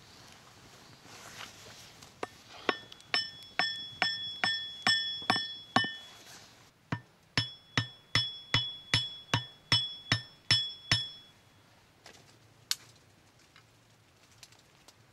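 Hammering on metal: about twenty sharp blows, each with a short bright ring, in two runs of a little over two a second with a brief pause between them.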